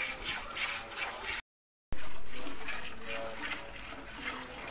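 Hand-milking of a cow: jets of milk squirting from the teats into a steel pail of frothy milk, a hissing squirt about two to three times a second. The sound cuts out for half a second about a second and a half in, comes back loud, and the squirting goes on.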